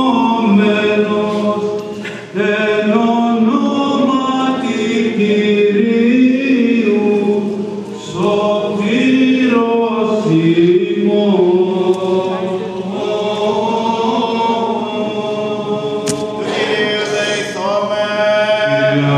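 Byzantine chant of a Greek Orthodox service sung by several voices, in long melodic phrases with short breaks about two and eight seconds in.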